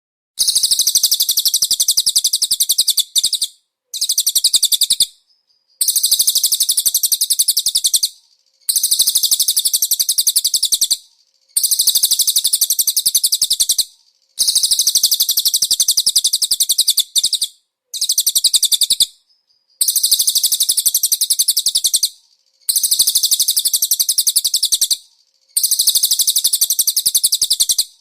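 A small songbird singing a string of high-pitched, very rapid trilling phrases, each about two to three seconds long, repeated about ten times with short pauses between them.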